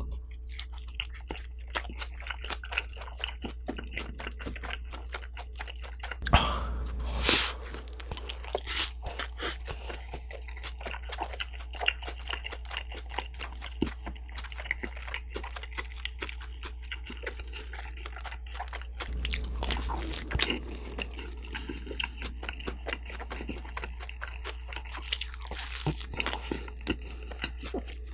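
Close-miked chewing of bulgogi pizza: a steady stream of small wet mouth clicks and crunches of the crust, with a few louder bites along the way.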